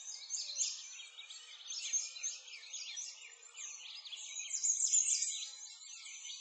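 A chorus of small birds chirping, with many short, high calls overlapping without a break.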